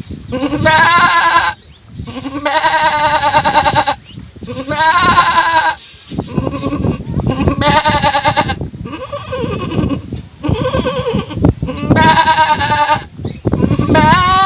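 A man imitating a goat with his voice: about seven drawn-out bleats, each with a quavering pitch, separated by short pauses, in the manner of a gentle goat's call.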